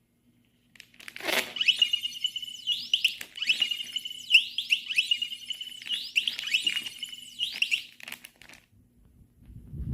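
Electronic anti-theft alarm sounding: a steady high-pitched tone broken every half second or so by quick warbling chirps. It lasts about six and a half seconds, then stops, with a few clicks along the way and a short thump near the end.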